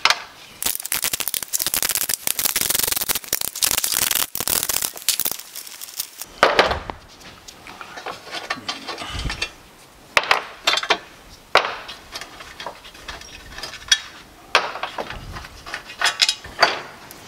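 Socket ratchet clicking rapidly as bolts are backed out of a metal mounting plate, followed by several separate metallic clinks and knocks.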